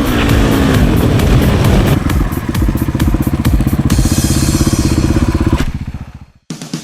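Dirt bike engine running hard with a rapid, even firing pulse. It fades away about six seconds in, and rhythmic music starts abruptly right after.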